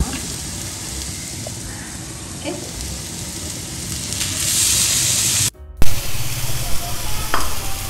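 Onion and ground masala frying and sizzling in a cast-iron kadai. The sizzle grows brighter about four seconds in as flaked boiled shark meat is tipped in. It cuts out briefly, then irregular stirring and scraping with a wooden spatula follow.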